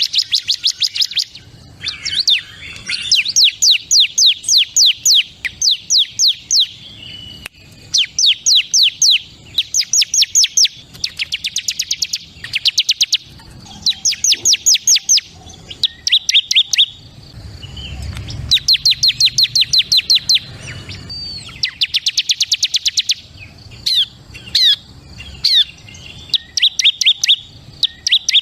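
Ciblek (bar-winged prinia) singing: fast trains of high, sharp chirps, about ten a second, in bursts of a second or two with short gaps between.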